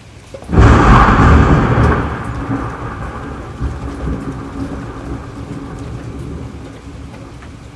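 A close thunderclap breaking suddenly about half a second in, then rumbling and slowly dying away, over steady rain.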